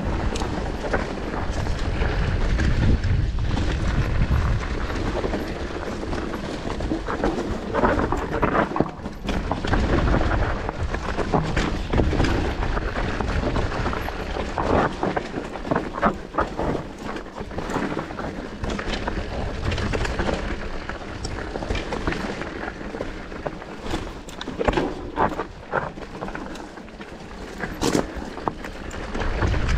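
Enduro mountain bike descending a rough trail at speed: wind rumbling on the camera microphone, with tyres on stones and the bike rattling and knocking over rough ground.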